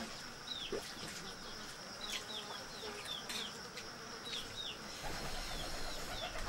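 A steady high insect drone with short falling bird chirps repeated throughout, and a few light clicks of forks against metal plates as people eat.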